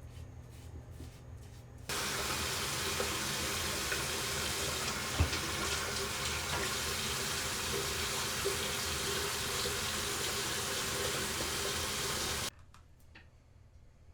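Water running steadily, starting abruptly about two seconds in and cutting off suddenly near the end, with a single sharp knock about five seconds in. Before the water starts there is a faint regular ticking, about two or three a second.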